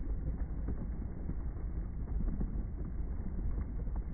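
Electric kettle heating water: a steady low rumble with faint ticks as the water starts to bubble.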